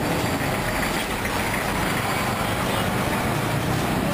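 Busy street traffic: the engines of a minibus taxi, a truck and motorcycles running as they pass close by, over a steady wash of road noise.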